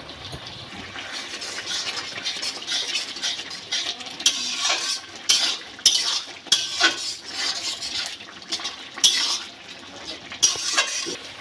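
A metal spatula scraping and clinking against an aluminium kadai as a thick, wet bottle gourd and prawn curry is stirred. The strokes come in irregular scrapes, loudest from about four seconds in.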